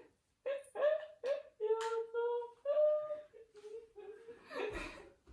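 A person's voice making wordless, high-pitched vocal sounds: a string of short held notes that step up and down in pitch, like playful humming or sing-song laughter. A soft low thud comes near the end.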